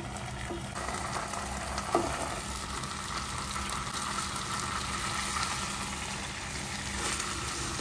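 Marinated chicken sizzling steadily in dark sauce in a frying pan. A single sharp knock comes about two seconds in.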